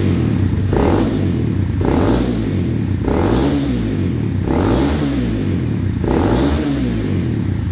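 Honda CBR250R's 250cc single-cylinder engine revved in quick throttle blips through a Kawasaki Ninja 250 slip-on silencer, about five times, each rev climbing fast and dropping back. The revs pick up straight away, with no hesitation.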